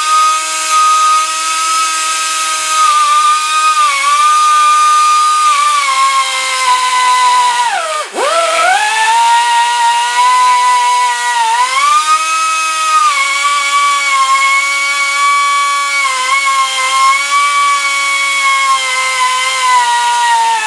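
Die grinder running at a high-pitched whine, grinding away a broken steel worm screw. Its pitch sags several times as it bears down, dropping sharply about eight seconds in before spinning back up.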